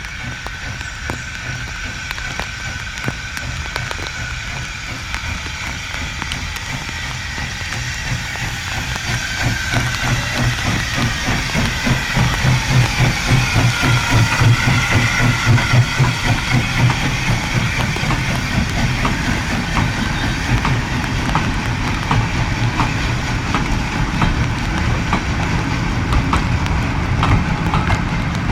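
A train running past on a heritage railway line, getting louder to a peak about halfway through and staying loud, with a rapid pulsing beat.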